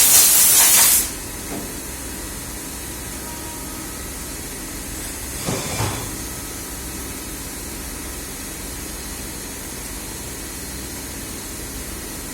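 A loud hissing spray that cuts off sharply about a second in, then a steady low background with one short noise about five and a half seconds in.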